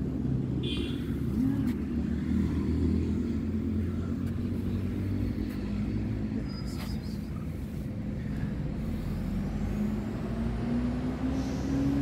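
Steady low rumble of motor traffic, with one vehicle's engine note rising over the last couple of seconds.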